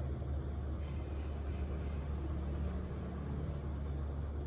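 A steady low hum with an even rumbling noise over it, unbroken throughout.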